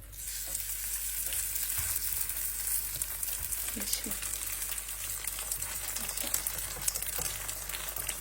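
Food frying in hot oil: a steady sizzling hiss with fine crackles that starts suddenly.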